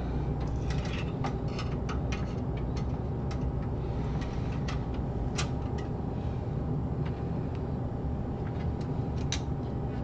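Metal expansion-slot covers being fitted into the rear slots of a PC case: scattered light clicks and taps, most of them in the first half, with a couple more near the end.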